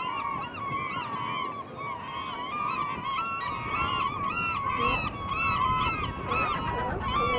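A large flock of gulls calling, many short overlapping calls at once.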